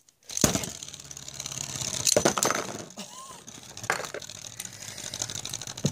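Plastic Beyblade spinning top clattering and rattling against a plastic Beyblade stadium, a rapid run of clicks with a few louder knocks. It starts suddenly about half a second in.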